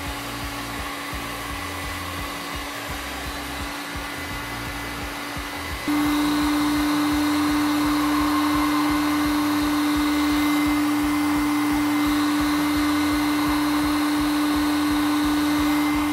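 Electric heat gun running steadily, a motor hum under a rush of blown air, aimed at an air rifle's plastic muzzle brake to heat it and soften the glue holding it on the barrel. It gets suddenly louder about six seconds in.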